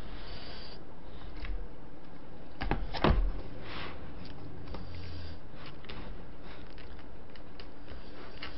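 Plastic takeout food trays being shifted around on a table, with light clicks and rustles and a sharp knock about three seconds in as a tray is set down.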